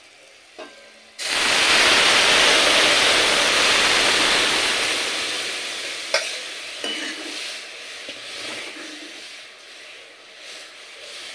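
Hot mustard-oil tempering of garlic and dried chillies hissing loudly as boiled lentils and greens are poured into the aluminium kadai. The hiss starts suddenly about a second in and slowly dies away over several seconds, with a metal clink about six seconds in and a ladle stirring the dal near the end.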